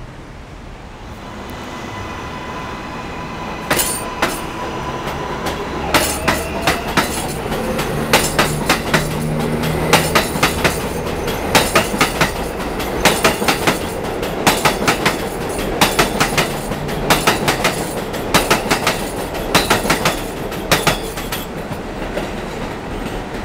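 New York City subway train passing, its wheels clacking over rail joints in quick clusters of clicks from about four seconds in until near the end, with a thin steady whine as it approaches.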